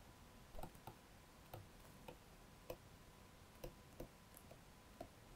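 Faint, irregular ticks of a stylus tapping on a pen tablet during handwriting, about eight small clicks spread over a few seconds against near silence.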